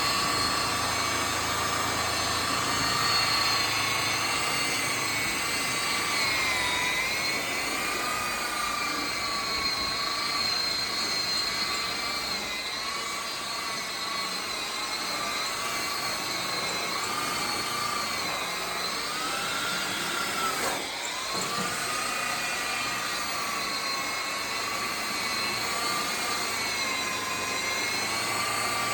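Electric polisher or buffer running at high speed on a chrome bumper, a steady high whine whose pitch sags briefly twice, about a quarter of the way in and again about two thirds through.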